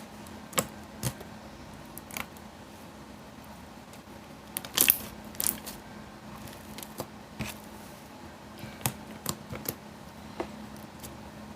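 Soft, sticky slime being squeezed and kneaded by hand, giving irregular sharp clicks and pops, the loudest a cluster about five seconds in, over a faint steady hum.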